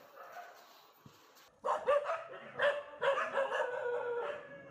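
Dogs barking repeatedly. The barking starts suddenly about a second and a half in after a quieter stretch, with one drawn-out whining call in the middle of it.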